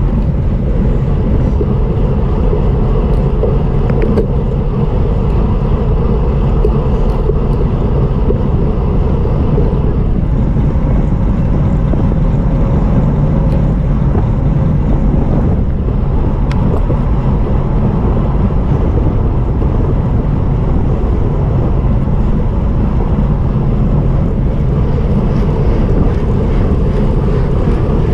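Steady wind rush over a bike-mounted action camera's microphone, with road and tyre rumble, as a road bike is ridden at race speed.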